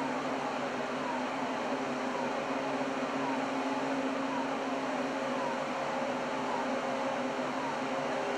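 Steady ship machinery drone: a low hum under a hiss, with a faint falling whine that repeats about once a second.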